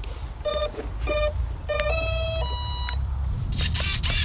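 Electronic beeps: three short beeps at one pitch, then two longer tones stepping up in pitch. A rush of noise follows near the end.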